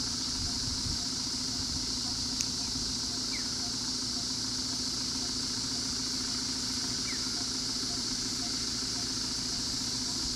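Steady hum of an idling vehicle engine under a constant high-pitched drone, with a few short rising chirps and a faint regular pulse about twice a second.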